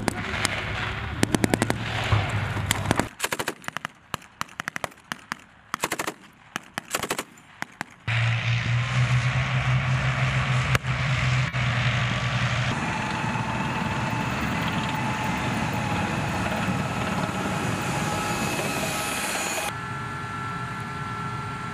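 Bursts of automatic small-arms gunfire, rapid cracks in quick runs, for the first several seconds. From about eight seconds in, tank engines run with a steady low drone.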